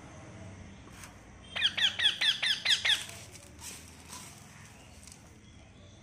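Rose-ringed parakeet calling: a rapid run of about eight harsh squawks in a second and a half, each a falling note, starting about a second and a half in.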